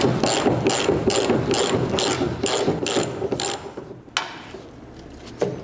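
Hand ratchet wrench clicking in quick back-and-forth strokes, about four a second, running off a nut that has just broken loose. The ratcheting stops about three and a half seconds in, and a single sharp click follows.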